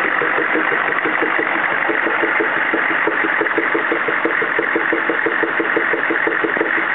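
CUCV-II's 6.5L diesel V8 running steadily with a regular popping, about six pops a second.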